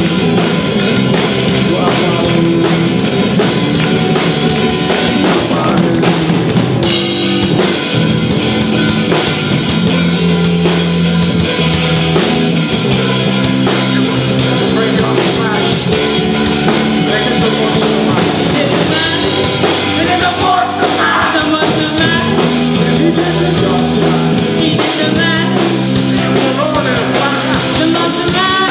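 Live rock band playing with a full drum kit, continuous and loud.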